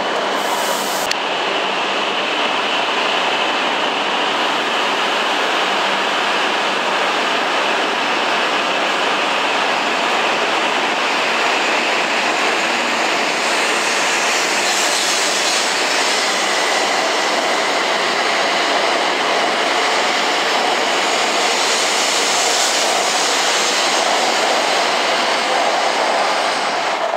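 E7 series Shinkansen train pulling out of the station, a steady rush of wheel and running noise as its cars slide past, with a faint high whine.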